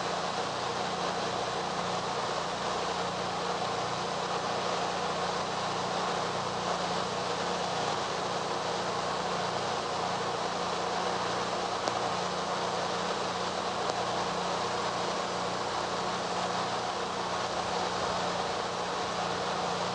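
Steady hiss with a faint low hum underneath: the background noise of an old archival film recording, with no distinct events.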